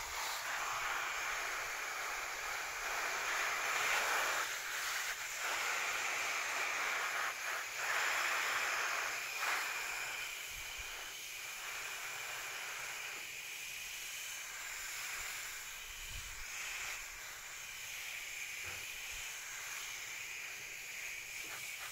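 Water spraying from a garden hose nozzle, a steady hiss and spatter of water hitting leaves. It is louder in the first half and softer in the second half as the spray is swept across the shrubs.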